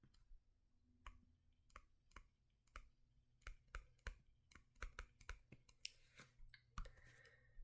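Faint, irregular clicks, about two a second, over near silence.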